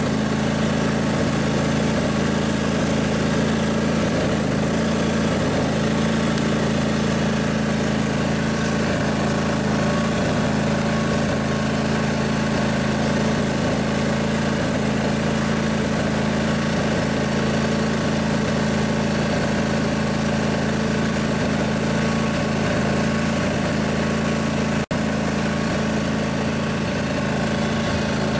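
Briggs & Stratton Intek OHV twin-cylinder engine of a riding mower running steadily at constant speed as the mower is driven along, with one momentary break in the sound near the end.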